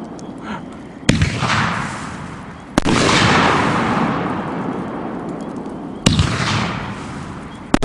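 A 9-shot 500-gram consumer firework cake firing its aerial shots: four sharp bangs a second or few apart, each followed by a fading crackling wash from the breaking effect.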